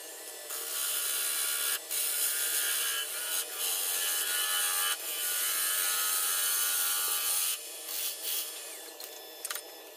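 A turning gouge cutting into a spinning figured walnut blank on a wood lathe: a steady rushing hiss of cutting, broken by brief pauses about 2, 3.5 and 5 seconds in, that stops about 7.5 seconds in, over the lathe's steady low hum.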